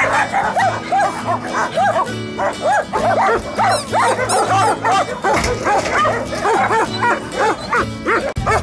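A large pack of dogs barking at once, many overlapping barks several times a second. Under them runs background music with a steady low beat.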